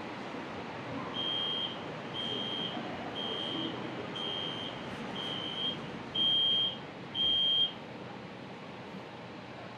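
Metro train door-closing warning: seven short, evenly spaced high beeps, about one a second, the last two louder, over the steady hum of the train, signalling that the doors are about to close.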